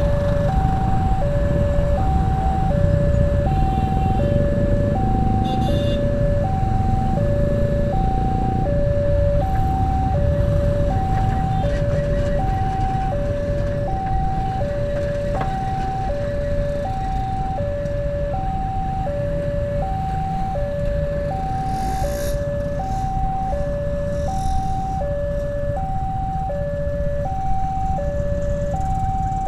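A railway level crossing's electronic warning alarm sounds a steady two-tone signal, switching between a higher and a lower pitch about every three quarters of a second. Under it runs the low rumble of the motorbike and car engines queued at the crossing.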